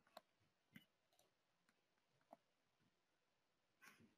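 Near silence, with a few very faint, scattered clicks.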